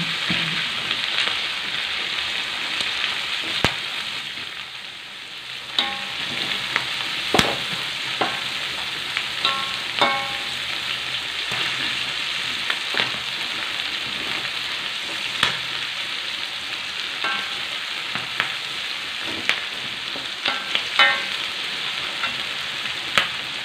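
Sliced shallots and garlic sizzling in hot oil in a steel wok while a metal spatula stirs them, scraping and knocking against the pan with short metallic rings. The sizzle dips briefly a few seconds in, then carries on.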